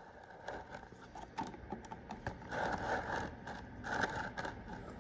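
Hand-handling noises of small parts: light scraping and rubbing with scattered clicks, in a few bursts.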